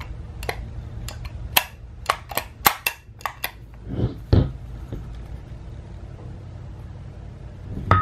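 Handling noise from an opened pedestrian crossing call button: a quick run of sharp clicks and taps on its metal bracket and plastic housing, then two duller knocks, over a low steady hum.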